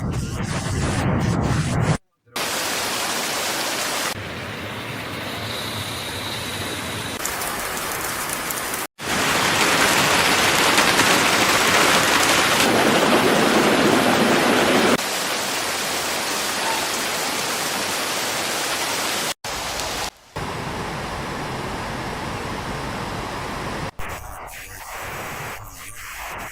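Steady rushing water noise across a string of hard-cut clips, loudest and fullest for about six seconds in the middle.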